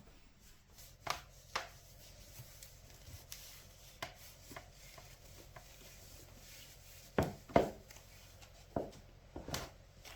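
A knife knocking on a cutting board in a few scattered strokes, the loudest coming as pairs about a second in and again near the end, with light handling sounds between.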